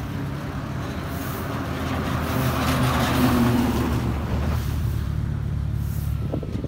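Road traffic: a vehicle passes close by, its engine and tyre noise swelling to a peak about three seconds in and then fading, over a steady low engine hum.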